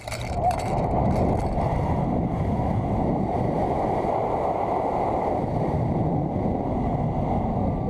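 Wind noise from air rushing over a pole-held camera's microphone as the riders free-fall and swing through the canyon: a loud, steady rush that sets in just after the start.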